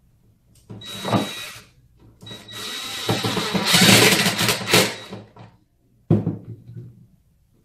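Cordless power driver running in three spurts, a short one, a long one of about three seconds and another short one, driving screws through a plastic ball catcher into the particleboard side panel of a foosball table.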